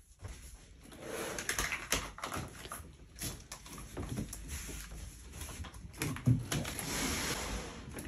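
Large cardboard shipping box with a heavy PC inside being tipped over onto its side: cardboard scraping and rubbing with scattered knocks, and a louder knock about six seconds in.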